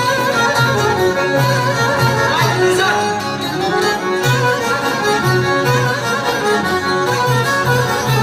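Instrumental Albanian folk music: a violin carries a wavering, ornamented melody over a steady, rhythmic bass line.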